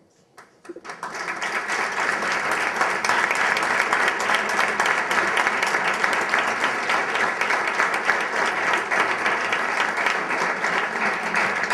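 Audience applauding: a few scattered claps, then full applause swelling in about a second in and holding steady.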